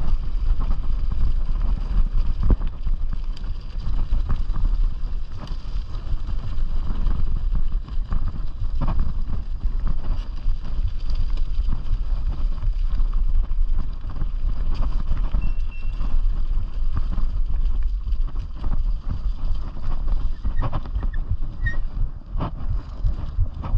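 Bicycle tyres rolling over a leaf-covered dirt track with wind buffeting the microphone, a steady low rumble with occasional knocks and rattles as the bike goes over bumps.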